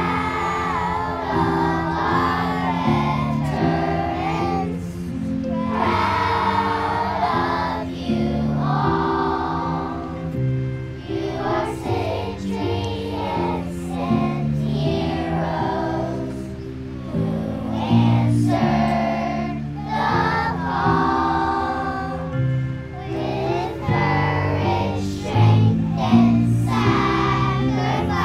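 A children's choir singing with instrumental accompaniment, in phrases a few seconds long with short breaths between them.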